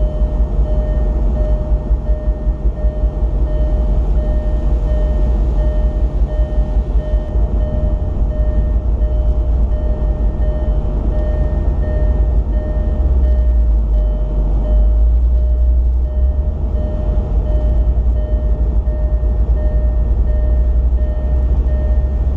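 Cabin noise of a Land Rover Discovery 2 on the move: a heavy low rumble from the engine and tyres, growing stronger about halfway through, with a steady high whine over it.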